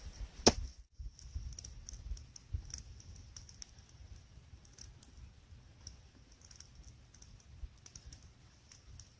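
Campfire crackling faintly, with small irregular pops and snaps.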